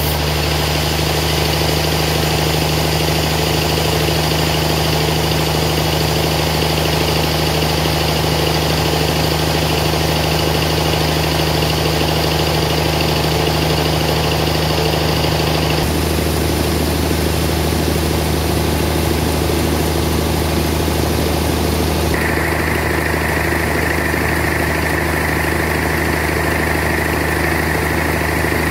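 Band sawmill running steadily as its blade saws through a large suar wood block, a constant machine hum with a steady pitch. The tone shifts twice, about 16 and 22 seconds in.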